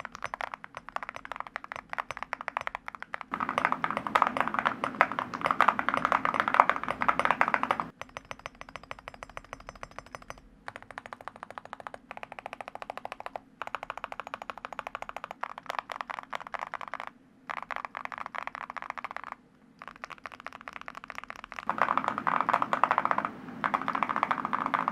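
Relic 80 mechanical keyboard fitted with full-metal keycaps being typed on: a continuous patter of key clicks, with faster, louder bursts of typing a few seconds in and again near the end. The metal keycaps push the sound toward the deeper, talkier side.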